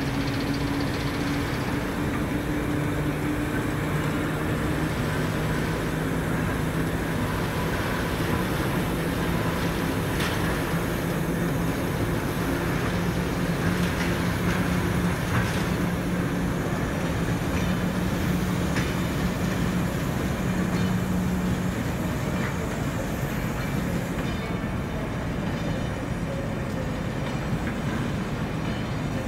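Class 08 diesel shunter's English Electric six-cylinder engine running with a steady hum as it slowly hauls a rake of coaches. Scattered clicks come from the wheels passing over the rails.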